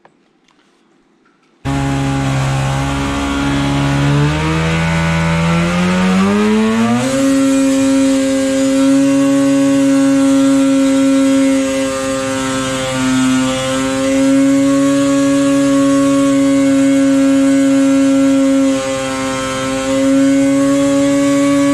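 The two-stroke twin of a 2016 Polaris Axys 800 snowmobile, fitted with a Jaws single pipe and its stock silencer, running under load on a dyno. The sound cuts in about two seconds in, the revs climb over a few seconds, then it holds near full speed at about 8,000 to 8,300 rpm, with a couple of brief dips.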